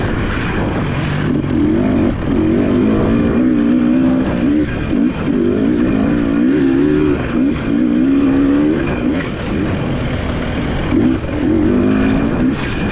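Off-road dirt bike engine running hard, its pitch rising and falling again and again as the throttle is worked.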